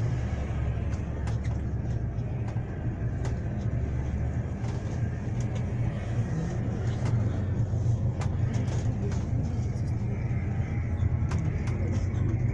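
Interior of a moving road vehicle: steady low engine and road rumble with scattered light clicks and rattles.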